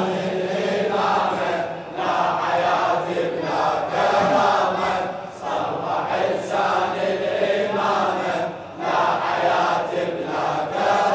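A crowd of male mourners chanting the refrain of a Shia latmiya in unison, in phrases of about three seconds with short breaks between them.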